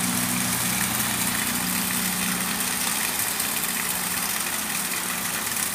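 Heavy rain and wind: a steady hiss of rain, with water pouring from a roof gutter spout. A steady low engine hum runs underneath and fades a little partway through.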